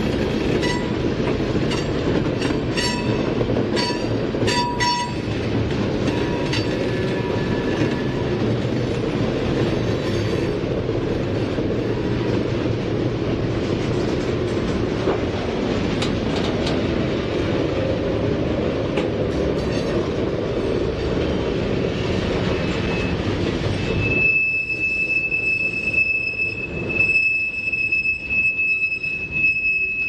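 Freight cars rolling past on jointed track: a steady rumble of wheels on rail, with sharp clicks in the first ten seconds or so. About 24 seconds in the rumble eases and a high, steady wheel flange squeal sets in, the sound of wheels grinding through the curve of the connector track.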